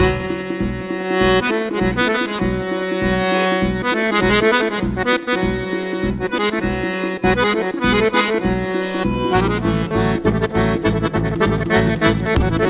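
Button accordion playing a fast lezginka dance tune: a melody over a quick, even pulse in the bass, which grows fuller about three-quarters of the way through.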